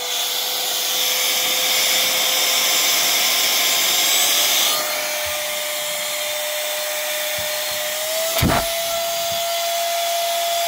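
Cordless electric air duster's high-speed fan running with a steady whine and a rush of air; the whine steps up in pitch twice as the unit is switched to higher speed settings, with a sharp click of its button near the end.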